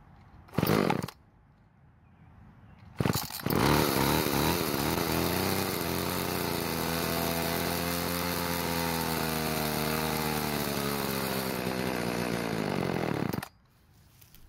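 Homelite XL two-stroke chainsaw engine starting about three seconds in after a brief first burst. It revs, then runs at a steady speed while its carburettor is briefly tuned, its pitch drifting slowly up and back down. It cuts off suddenly about a second before the end.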